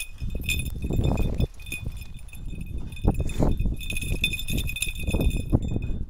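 Feet crunching through deep snow in quick, irregular steps, with the metal tags on a dog's collar jingling on and off.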